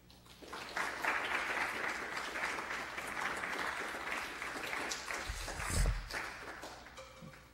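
Audience applauding at the end of a lecture: the clapping starts about half a second in, holds steady, and dies away near the end, with one low thump about six seconds in.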